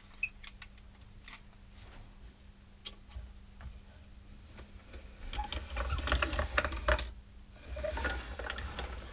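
Plastic paint edger pushed along a board, its paint-loaded roller and little wheels rolling and rattling in two strokes, forward and back, in the second half. A few faint clicks come earlier as it is set in place.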